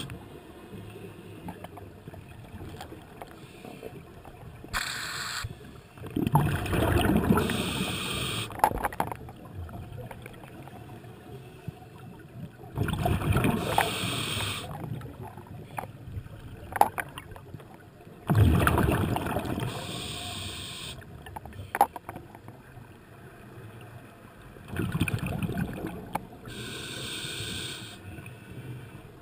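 A scuba diver breathing through a regulator, heard underwater: about four breaths roughly six seconds apart, each a noisy burst of exhaled bubbles together with a hiss of air through the regulator. A few faint clicks fall between the breaths.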